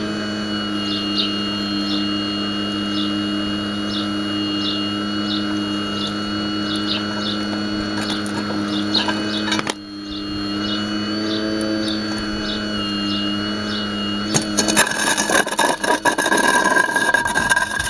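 Hydraulic pump of a radio-controlled Hitachi 870 model excavator running with a steady hum and a thin high whine while the arm and bucket move. It drops out briefly a little past halfway. In the last few seconds a loud rough scraping comes in as the bucket digs into the gravelly, broken-concrete soil.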